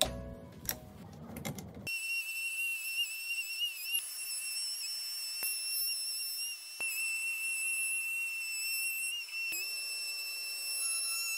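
Table-mounted router running a 9 mm round-over bit, a steady high-pitched whine that wavers slightly in pitch at times as wood is fed along the bit.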